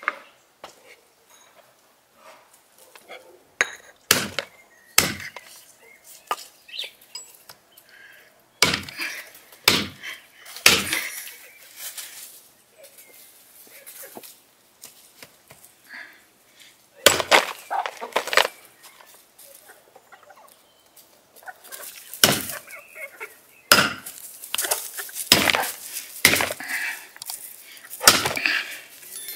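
A cleaver chopping raw beef ribs on a wooden stump block: sharp, heavy strikes in irregular groups, with several close together near the end.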